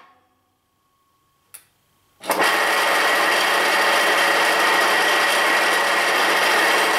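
Snowmaster snow cone machine's electric motor switched on after a click about two seconds in, then running steadily with a high whine over a rough, even noise. Its shaver is spinning the wrong way, which the owner puts down to the motor being fitted backwards.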